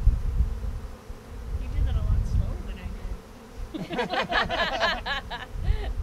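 Honeybees buzzing in the air as their colony is disturbed and moved. In the second half several bees fly close past the microphone, their buzz quickly rising and falling in pitch.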